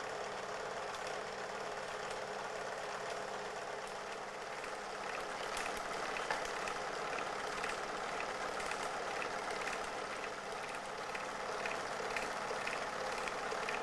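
Film projector running: a steady mechanical whir, with a faint regular ticking about twice a second starting about five seconds in.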